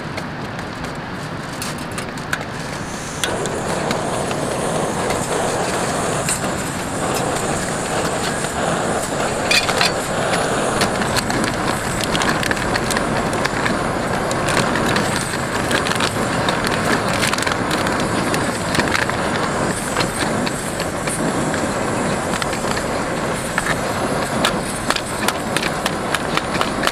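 Steady rushing noise that grows louder about three seconds in, with scattered light clicks and crinkles as a paper soup sachet is handled and its powder is shaken into a stainless steel sierra cup.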